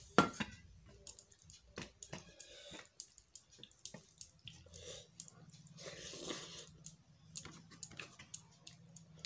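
A steel bowl knocks once on the table, then fingers squish and mix cooked rice and dalma on a metal plate, with many small clicks against the plate.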